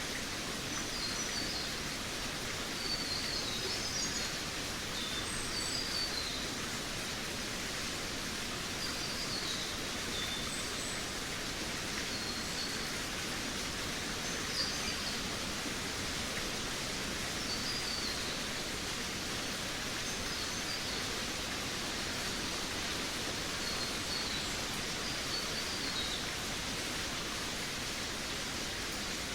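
Forest ambience: small birds chirping in short, high calls scattered throughout, over a steady hiss.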